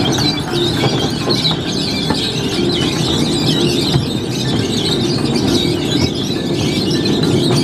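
Miniature train running, with a steady low rumble from the engine and wheels and a wavering high-pitched squeal throughout.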